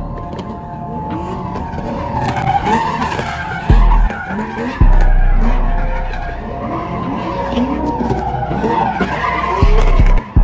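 A car doing donuts or a burnout: its tyres squeal continuously while the engine revs up and down again and again. Deep bass booms land about four and five seconds in and again near the end.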